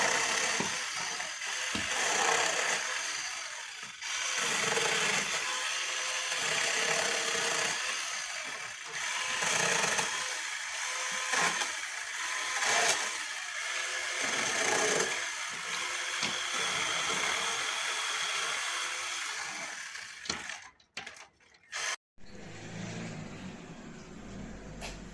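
CEEPUY 8-inch battery mini chainsaw cutting wood, its sound swelling and easing over and over as the chain bites. The sawing breaks off about 20 seconds in, followed by a quieter stretch with a low hum.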